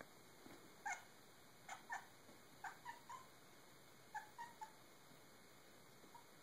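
Domestic cat making short, chirping 'barking' calls in quick runs of two or three, about ten in all, the last one faint near the end. These are the calls a cat makes while stalking a moving spot of reflected sunlight.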